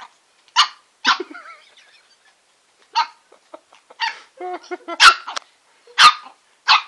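Shih-tzu puppy barking: about seven short, sharp, high-pitched barks spaced irregularly over several seconds.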